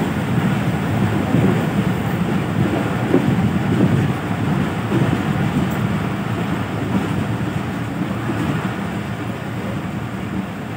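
Passenger train running along the line, heard from an open carriage window: a steady rumble of wheels on rails mixed with wind buffeting the microphone, easing slightly toward the end.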